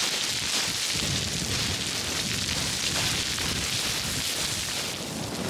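Loose scree crunching and sliding underfoot in a steady gravelly hiss as boots run down a stone slope.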